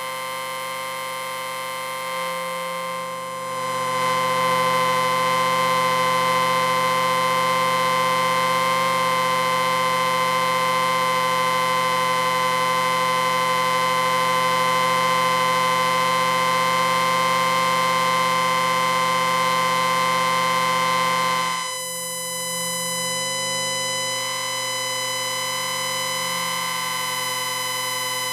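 Electric bell ringing continuously with a steady, buzzing tone. It grows louder about three seconds in and drops back to a lower level about twenty-one seconds in.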